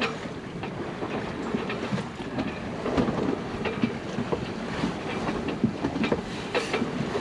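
A bunch of keys inside a sailboat's cabin jingling and clinking irregularly as the boat rolls in the waves, with a steady wash of wind and water underneath.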